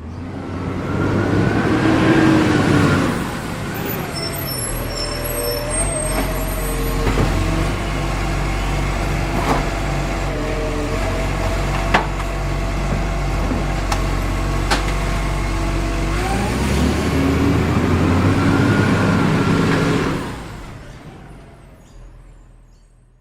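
Truck engine running. It revs up in the first few seconds, settles to a steady run with a few sharp clicks, revs up again near the end, then fades out.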